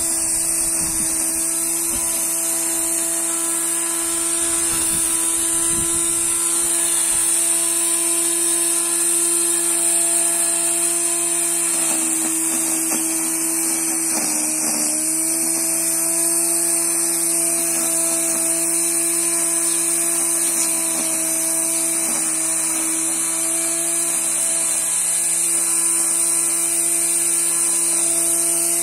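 Homemade grass cutter driven by an electric angle grinder, running with a steady high whine as it is pushed through dry grass. Its pitch sags briefly about halfway through, then recovers.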